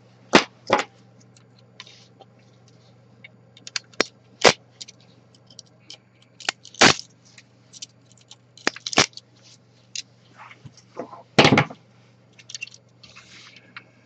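3D-printed plastic support material snapping and crackling as it is pulled and broken away from a printed buckle with needle-nose pliers. Irregular sharp cracks, about six of them louder snaps, with small clicks and scraping between, over a faint steady hum.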